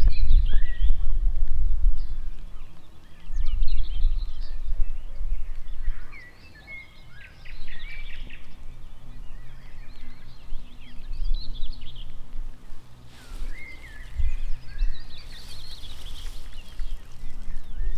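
Small birds singing in repeated bursts of quick chirps and trills, over a low rumble that is the loudest sound.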